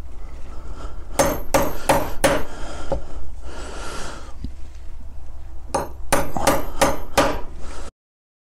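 Hammer driving a metal hole punch through a thick drum skin into a wooden block: a quick run of four sharp strikes, then a run of five a few seconds later, with some scuffing between the runs. The sound cuts off suddenly near the end.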